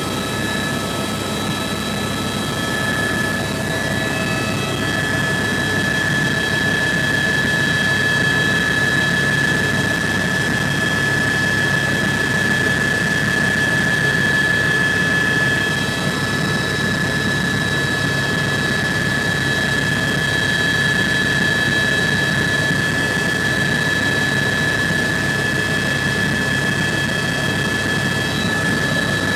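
Bell 206 helicopter in flight, heard from inside the cabin: the steady high whine of its turbine engine over a constant rush of rotor and engine noise.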